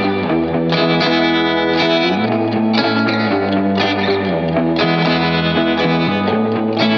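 Background music led by electric guitar with distortion and effects, steady notes changing about every second.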